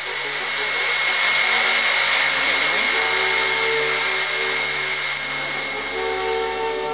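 Electric drill running at steady speed with a high motor whine, spinning wooden discs while sandpaper rasps against them to sand them round.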